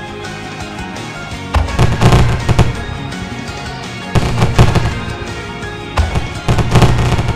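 Simulated fireworks display from the FWsim fireworks simulator: three rounds of booming shell bursts with crackle, about a second and a half, two and a half, and four seconds in. Underneath runs a J-pop backing track with no vocals.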